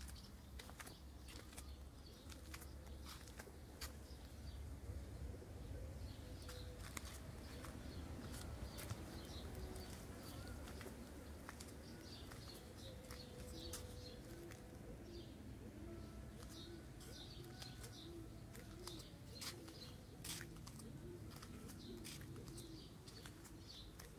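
Faint outdoor birdsong: small birds chirping high and briefly, with a low cooing repeated about twice a second through the second half. Scattered clicks and a low rumble underneath.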